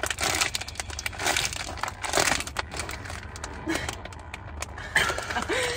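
Crinkling of a Ruffles potato-chip bag being handled, a dense run of crackles and rustles.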